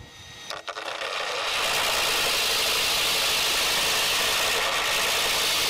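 Carbide chain spun at speed on a flexible drain-cleaning shaft, whirling and scraping against the inside wall of ABS plastic pipe as it abrades the plastic. It starts faintly, builds up over about the first second and a half, then holds as a steady grinding hiss.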